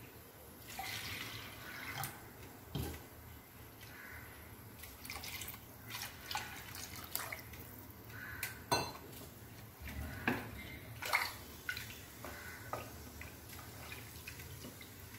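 Water poured and dripping from small steel bowls into a pressure cooker of rice and coconut milk, as water is added to the rice. Several sharp clinks of the steel bowls knocking together.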